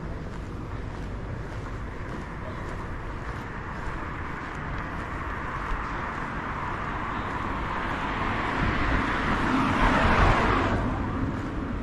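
A vehicle passing close by on a city street. Its noise builds over several seconds to a peak near the end, then falls away quickly, over a steady background hum of traffic.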